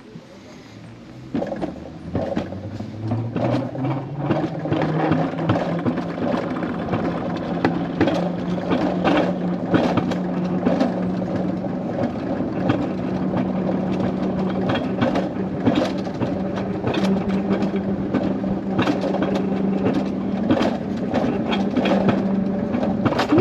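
Wiegand Alpine Coaster sled running down its steel tube rails: a wheel hum that rises in pitch for the first few seconds as the sled gathers speed, then runs steady, with frequent clicks and rattles from the track.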